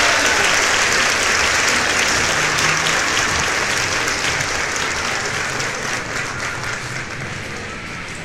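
Crowd applause, a dense patter of many hands clapping, fading out steadily over the second half.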